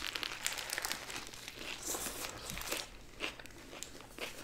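Close-miked eating sounds: paper burger wrappers crinkling as the burgers are bitten into and chewed, with small crackles and mouth clicks. The crinkling is dense for the first three seconds, then thins out.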